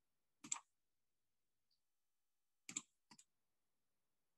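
Near silence broken by a few short clicks: one about half a second in and a pair of clicks near three seconds.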